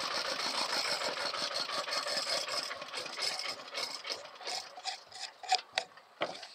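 Small stationary engine powering a rebar bending machine being shut down: its rapid firing knocks slow, spread apart and fade, dying out about six seconds in.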